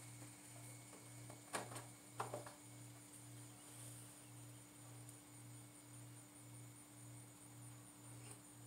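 Near silence: a faint low hum that pulses about twice a second over a steady thin tone, with a few light clicks about one and a half to two and a half seconds in.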